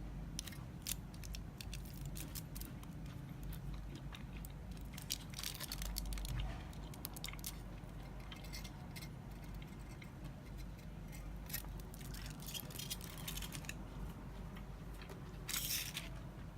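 Lotte Crunky chocolate bar and its wrapper being handled: irregular crackles, crinkles and sharp clicks, with a louder crackling burst near the end.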